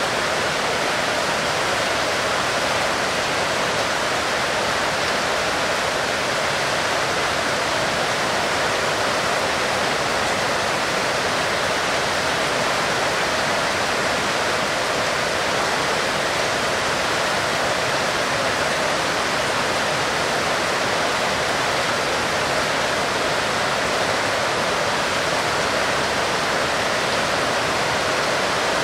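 Heavy rain falling in a steady, even hiss with no let-up.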